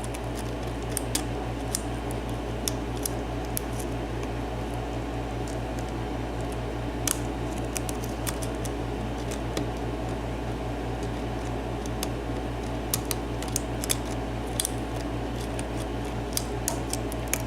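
Lock pick scraping and clicking against the pins inside a 7-pin Dorma cylinder lock under light tension: scattered, irregular faint ticks as pins are lifted and set. A steady low hum runs underneath.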